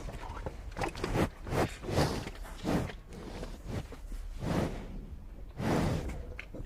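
A cow eating: a run of short crunching bites and chews, several close together in the first three seconds, then a few spaced further apart, over a low steady rumble.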